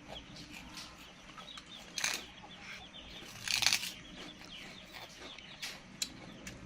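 Baby monkey biting and chewing a crispy rice cake: a few crunches, loudest about two and three and a half seconds in, with smaller crunches near the end.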